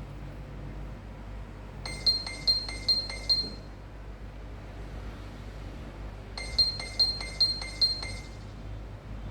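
Nokia 3110 classic's built-in speaker playing a Nokia 6100 ringtone: a short run of quick, high, same-pitched beeps, sounding twice with a pause of about three seconds between runs.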